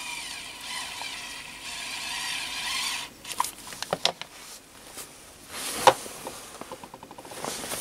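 ES121 electric screwdriver's small motor whining steadily as it turns a tiny screw, stopping about three seconds in. A few clicks follow, then a sharp knock near the end as the metal screwdriver is laid on the wooden table.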